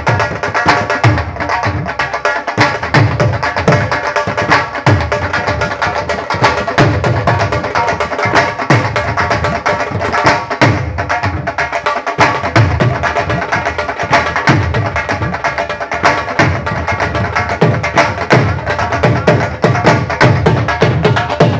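Two Punjabi dhols played together in a fast, driving rhythm: deep bass strokes about every half second under dense, sharp stick strokes. Steel bowls struck on a stand add a steady metallic ringing.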